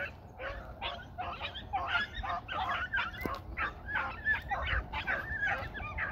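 A pack of beagles baying while running a rabbit on scent, many overlapping yelping calls several a second.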